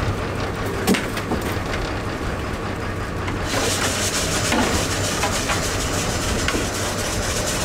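Crab workboat's engine running steadily underneath, with knocks and rattles from a wire crab pot being shaken out and crabs being handled. A hiss comes in about three and a half seconds in.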